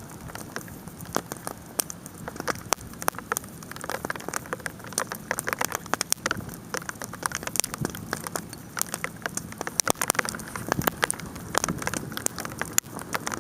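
Bonfire crackling and popping while hail patters down around it: a dense, irregular run of sharp clicks and pops over a steady hiss.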